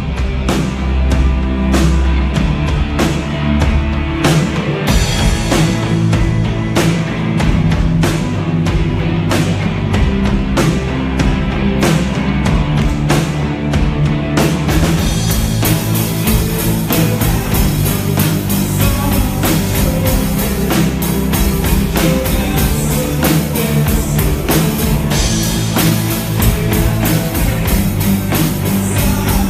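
Rock band playing live: electric guitars, bass guitar and drum kit, with a steady beat. About halfway through, the cymbals start ringing continuously and the sound fills out.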